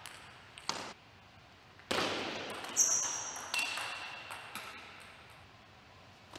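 A few sharp clicks of a table tennis ball off bats and table, ringing on in a large hall, the loudest about two seconds in.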